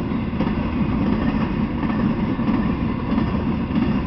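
Intermodal freight train cars loaded with truck trailers rolling past: a steady rumble of steel wheels on the rails.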